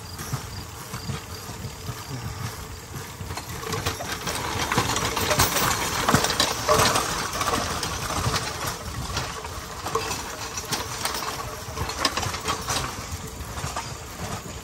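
Rail bike rolling along the track: steel wheels rattling and clicking on the rails over a steady small-engine hum. The rattling is busiest in the middle stretch.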